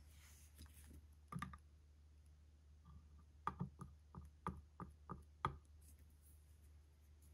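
Light clicks and taps of a metal edge-paint pen against a plastic bottle of edge paint as the pen is dipped and loaded. There is one click about a second in, then a quick run of about nine clicks over two seconds in the middle.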